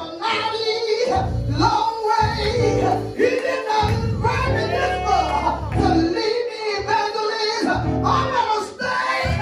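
A woman singing a gospel song into a handheld microphone, with keyboard accompaniment holding low sustained notes underneath.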